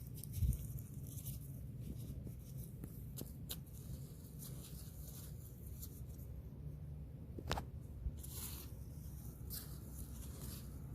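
Soft scraping and rustling of soil and potato plants being dug up by hand, with scattered light clicks and a louder burst of rustling near the end, over a steady low hum.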